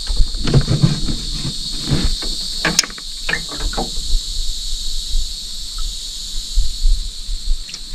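Steady high-pitched insect chorus buzzing throughout, with scattered clicks and knocks from gear being handled in the boat during the first few seconds.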